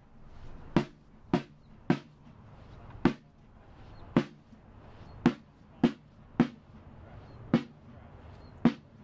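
Single drum strokes, each sharp with a short ringing tone, about ten of them in a march rhythm: runs of three beats about half a second apart broken by longer gaps of about a second.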